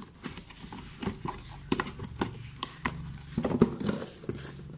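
Cardboard box with plastic wrapping being handled and turned over on a wooden floor: irregular taps, knocks and crinkles.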